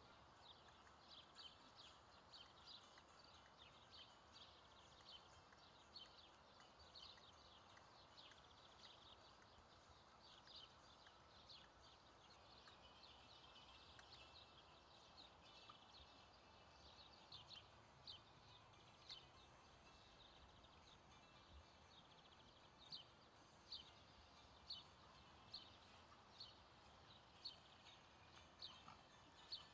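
Faint, steady rhythm of a horse's hoofbeats and tack on a sand arena: soft ticks about twice a second, clearer near the end.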